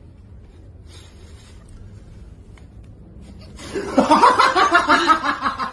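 A person laughing loudly in quick repeated pulses, starting a little past the halfway point after a stretch of quiet background.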